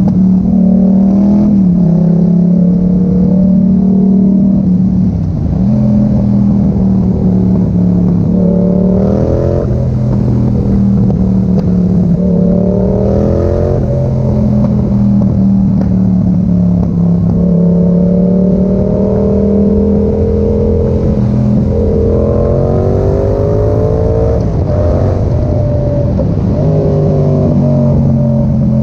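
Yamaha MT-07's 689 cc parallel-twin engine running loud through an Arrow exhaust with the dB killer removed. The pitch rises again and again under acceleration and drops back each time, as when the rider changes gear.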